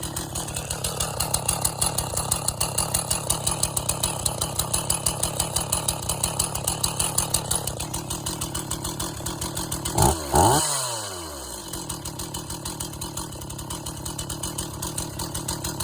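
Freshly rebuilt Stihl 044 two-stroke chainsaw idling with an even firing rhythm. It is given two quick throttle blips about ten seconds in, then settles back to idle.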